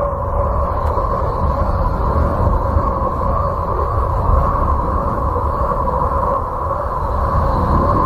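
Uranus's radio emissions, recorded by the Voyager 2 spacecraft and converted into sound: a steady rumbling drone with held, humming tones over it.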